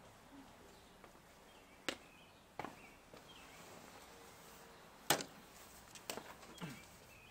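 A few sharp knocks and clicks, the loudest about five seconds in, against a quiet outdoor background with faint bird chirps.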